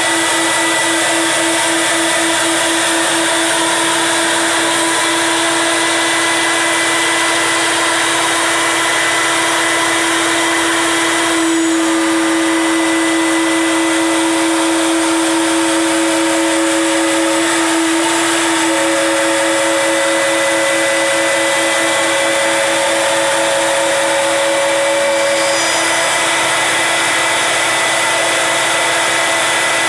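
CNC router spindle running at speed and cutting through three stacked 2x10 boards for stair stringers: a loud, continuous whine over a hiss. The tone changes about twelve seconds in, and it pulses in stretches as the cut goes on.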